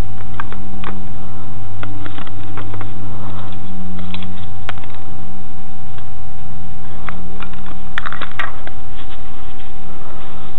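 Steady electrical hum with a thin high whine running underneath, broken by scattered small clicks and scrapes from handling a spray-foam can and a scraper at a brick wall. A quick run of clicks comes about eight seconds in.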